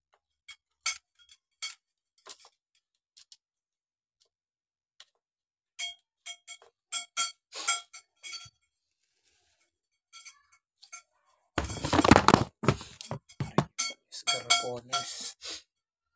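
Thin metal shoe-rack rods clinking and tapping with a brief ring as they are handled and pushed into plastic end pieces, scattered single clicks at first, growing busier. About twelve seconds in comes a couple of seconds of louder rattling and scraping, followed by a few more knocks.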